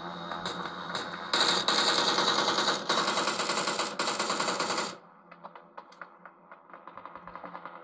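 Video-game automatic rifle fire: rapid shots in quick bursts starting about a second in and cutting off suddenly about five seconds in, followed by quieter scattered ticks.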